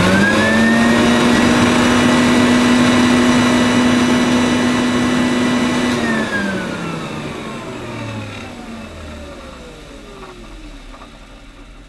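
Electrolux 170 upright vacuum cleaner's motor switched on: it spins up to a steady whine within half a second and runs for about six seconds. It is then switched off and coasts down with a steadily falling whine that fades out. On this first test run the motor sounds sound, not burnt out, despite the rusty, dirty interior.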